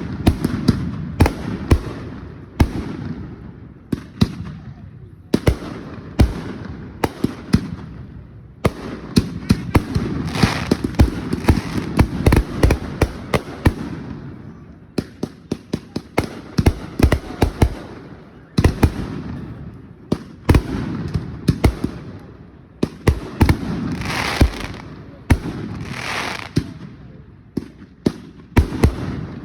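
Fireworks display: a long run of sharp bangs from bursting shells, many in quick clusters, with crackling between them.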